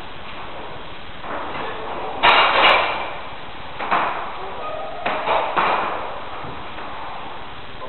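Steel falling-plate targets being reset upright, ringing metallic clanks: two loud ones about a third of the way in, then one more and a quick pair past the middle.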